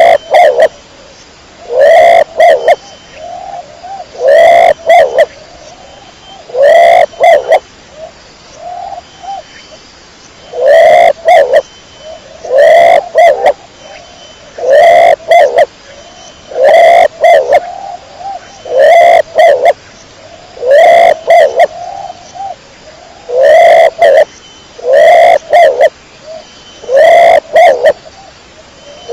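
Domestic pigeon cooing over and over, loud, in short double coos about every two seconds.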